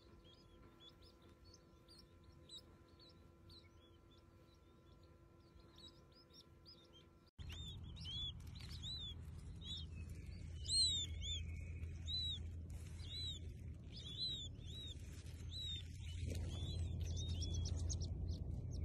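Baby chicks peeping: faint high cheeps at first, then from about seven seconds in, louder and quicker repeated peeps, each a short rise and fall in pitch, over a low rumble.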